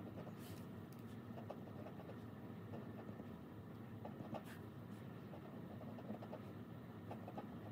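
Faint scratching of a pen writing on a paper sheet, over a steady low room hum, with a couple of short sharp clicks.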